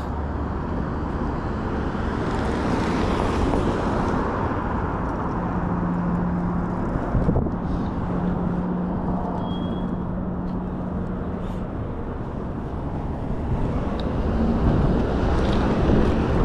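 Wind rushing over the microphone with road and tyre noise while riding a folding e-bike, and a steady low hum for about six seconds in the middle.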